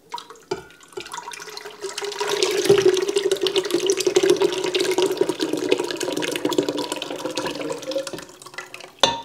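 Buttermilk and melted butter poured in a steady stream from an enamel pot into a stainless-steel mixing bowl, splashing into the yeast water already in it; the stream tapers off near the end, followed by a short knock.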